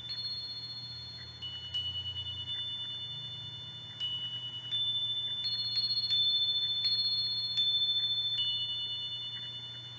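A small three-bar glockenspiel struck gently with a wooden mallet, about a dozen slow strikes across three high notes. Each note rings on for several seconds and overlaps the next.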